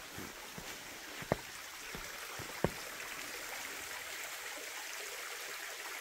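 Small mountain stream trickling down a narrow channel in bare rock, a steady soft splashing, with a few sharp ticks in the first three seconds.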